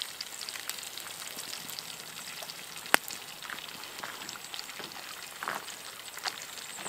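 Brook trout sizzling steadily in a frying pan over a campfire, with scattered small pops and crackles and one sharp click about three seconds in.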